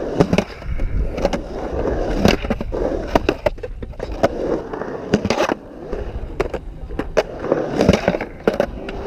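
Skateboard wheels rolling over concrete with a steady rumble, broken many times by sharp clacks and knocks of the board.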